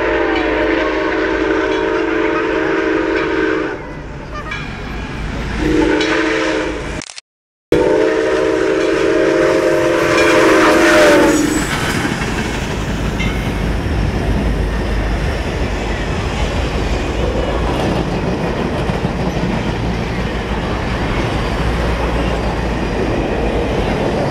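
Steam locomotive whistle blowing long blasts, with a shorter one between, as the engine nears the grade crossing. After about 12 s the passing train takes over: a steady rumble of passenger cars, with wheels clacking over the rail joints. The audio drops out briefly just before the last blast.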